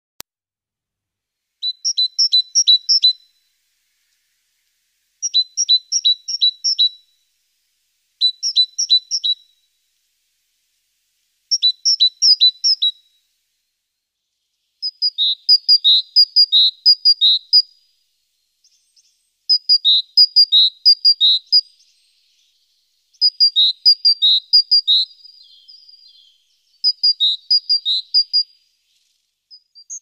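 Great tit singing: a series of short phrases, each a quick run of repeated two-note units, with pauses of a second or two between them. About halfway through, the phrases get longer and the notes lower.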